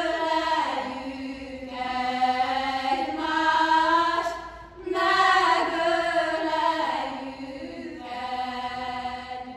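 Slow vocal music: singing in long-held notes, with a short breath-like gap about four and a half seconds in, getting quieter toward the end.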